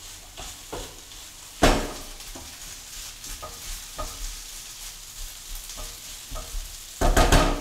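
Grated potatoes and onions frying in olive oil in a frying pan, with a steady sizzle and a utensil stirring, scraping and clacking against the pan. A loud knock comes about 1.7 s in, and a louder clatter of about half a second comes near the end.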